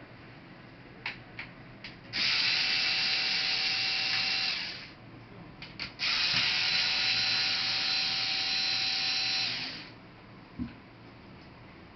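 Small electric screwdriver running twice, for about two and a half seconds and then about four seconds, backing screws out of a laptop case. A few light clicks come before each run.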